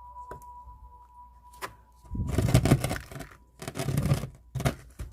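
Hands working succulents and soil into a pot: two bursts of rustling and scraping, each about a second long, with a few sharp clicks before and between them.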